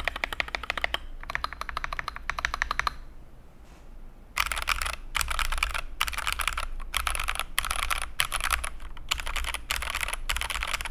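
Fast typing on a mechanical keyboard fitted with Akko switches, a rapid run of key clacks. It stops for about a second and a half near the 3-second mark, then resumes with a brighter, sharper clack, as if on a different switch.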